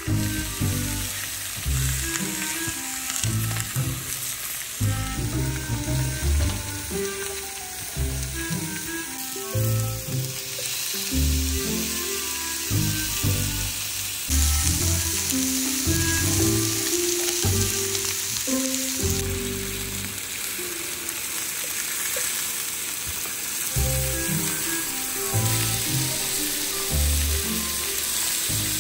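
Food sizzling and frying in a hot pan, a steady hiss that jumps in level at a few cuts, under background music with a low, steady bass line.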